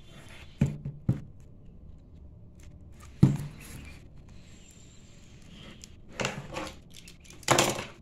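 A cardboard comics slipcase knocked against a wooden tabletop, three sharp thumps in the first few seconds, then cardboard and paper rustling and scraping twice near the end as the tightly stuck comics are worked out of their case.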